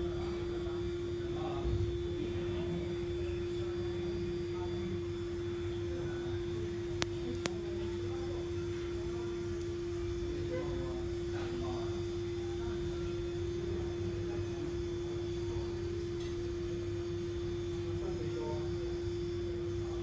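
A steady humming tone with a low hum beneath it, broken by two sharp clicks about seven seconds in.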